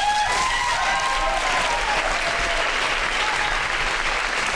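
Theatre audience applauding steadily, with a few whooping cheers rising and falling over the clapping in the first second or so.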